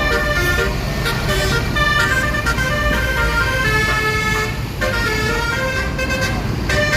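Multi-tone basuri (telolet) horns on tour buses playing a run of changing notes, like a tune, over the low rumble of the moving buses.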